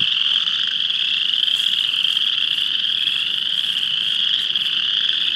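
A loud spring peeper chorus, with other frogs mixed in: countless high peeps overlapping into one continuous, unbroken wall of sound.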